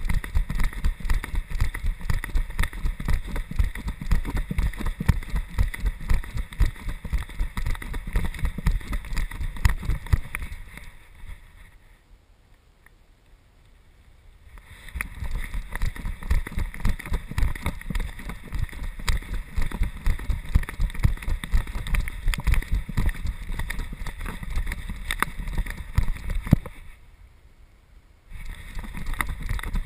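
GoPro camera strapped to a moving golden retriever: a dense, jostling rumble of rapid bumps and knocks as the camera is shaken with the dog's movement. It drops away almost to quiet twice, for a few seconds a little before halfway and again briefly near the end.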